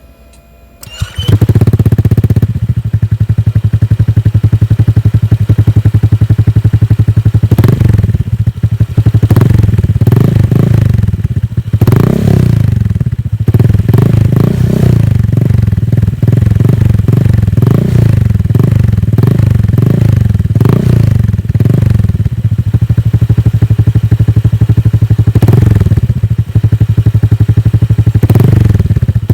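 Honda Click 150i scooter's single-cylinder four-stroke engine, fitted with an aftermarket Akrapovic muffler, starts about a second in and idles. Then it is revved again and again in short throttle blips, each rising and falling in pitch.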